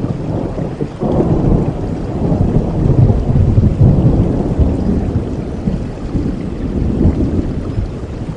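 A long roll of thunder over steady rain: the rumble breaks in about a second in, is loudest around three to four seconds, then rolls on and fades near the end.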